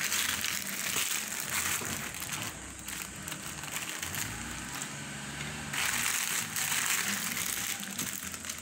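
A thin plastic bread bag crinkling and rustling as it is handled. The crinkling comes in two spells, one at the start and another about six seconds in.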